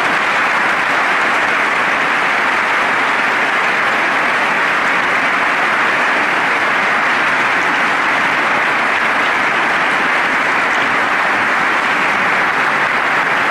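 Large seated audience applauding steadily, a dense, even patter of many hands clapping.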